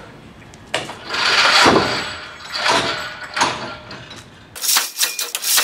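Drop test of a low-stretch kernmantle rope: the tower's test mass runs down its guide rails and is caught by the rope, a loud rushing clatter about a second in, followed by a couple of shorter knocks. Near the end comes a run of rapid clicks.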